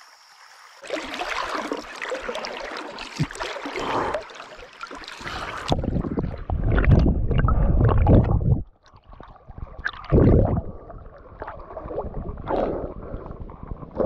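River water splashing around a wading angler. About six seconds in, the sound turns muffled and rumbling as the camera goes under the water, with heavy low surges of moving water.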